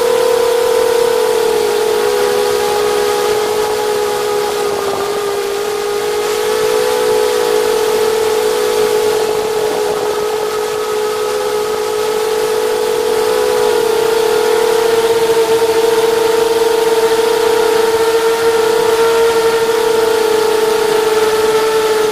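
FPV multirotor drone's electric motors and propellers whining in flight, picked up by a camera mounted on the drone itself. The high, steady whine wavers slightly up and down in pitch.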